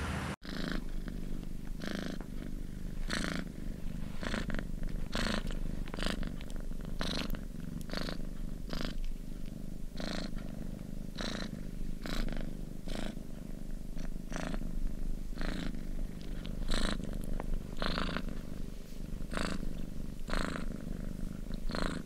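Domestic cat purring steadily, the sound swelling about once a second with each breath. It starts just after a sudden cut about half a second in.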